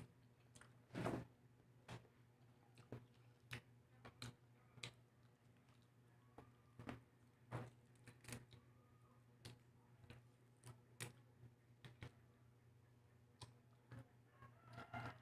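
Faint, sharp clicks and small taps, scattered roughly one every second with the loudest about a second in, from hard-boiled eggshell and utensils being handled on a table. A faint steady low hum runs underneath.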